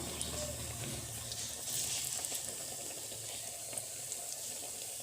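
Battered onion pakoras deep-frying in hot refined oil in a kadai: a steady sizzle with scattered small crackles.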